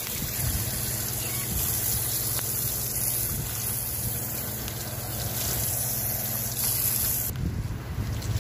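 Water running from an outdoor foot-rinse tap and splashing onto a plastic drain grate, a steady hiss that cuts off suddenly about seven seconds in.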